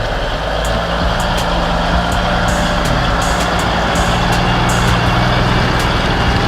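Heavy diesel engine of logging machinery running steadily under load, with short clicks scattered over it.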